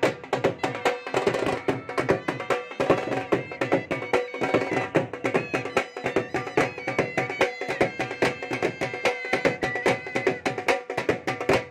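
Dhol drums beating a fast, driving dhamal rhythm, with a high wavering tone held above the drumming.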